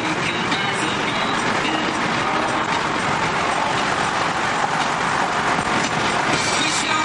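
Steady road and engine noise inside a car's cabin at highway speed.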